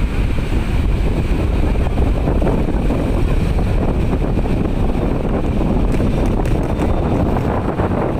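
Wind buffeting the microphone in a steady low rumble, with sea waves beneath it.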